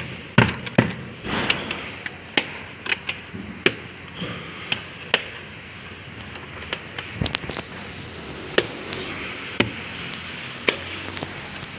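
Irregular sharp clicks and knocks of a truck's plastic air cleaner housing and cover being handled and fitted back together, its clips snapping into place. The clicks come thick at first, then sparser, over a steady hiss.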